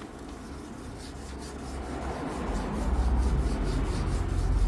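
Sandpaper rubbing over a panel in repeated back-and-forth strokes: 2000-grit sanding to take out the scratches left by 1500-grit. A low rumble grows under it about two and a half seconds in.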